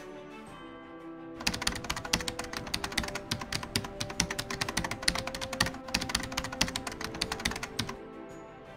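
Keyboard typing sound effect: a fast, dense run of key clicks that starts about a second and a half in and stops near the end, over soft background music.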